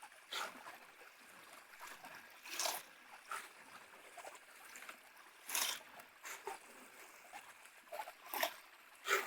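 Water trickling through a gold sluice box, with a few brief splashes.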